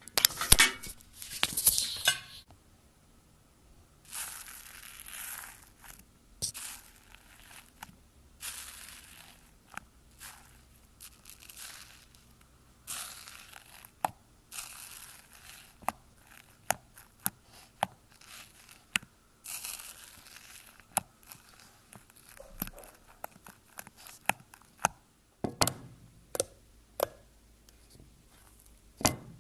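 Slime being stretched, torn apart and pressed by hand, making a hissing tearing sound in stretches of a second or two, with many sharp crackling clicks and pops. The loudest crackle comes right at the start.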